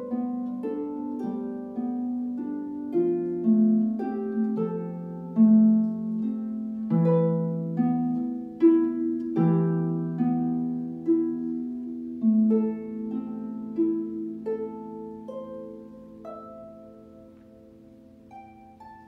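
Floor harp being plucked, with notes and chords ringing over one another. Near the end the playing thins to a few single notes and the sound dies away.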